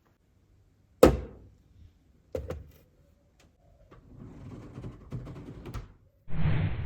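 Knocks and handling noise: a sharp knock about a second in, a quick double knock, then a few seconds of scraping and rustling, and a short louder burst of noise near the end.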